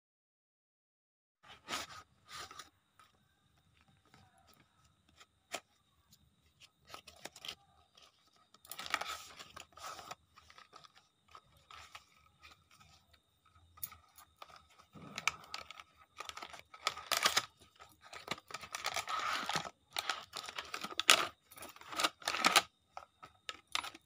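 Plastic packaging and a cardboard box being handled and unwrapped: crinkling and tearing in irregular bursts, starting about a second and a half in.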